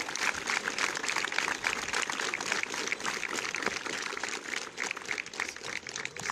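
Crowd applauding, many hands clapping in a dense patter that slowly tapers off toward the end.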